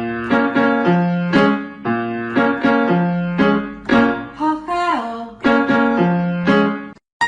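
Piano-like keyboard music: a run of struck notes and chords, each dying away after it is played, with a short downward slide in pitch about five seconds in.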